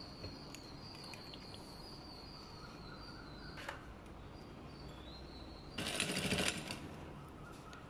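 Sewing machine running in one short burst of stitching, under a second long, about six seconds in, between quiet handling of fabric at the machine. A faint, high, rapidly pulsing tone sounds in the background through the first half.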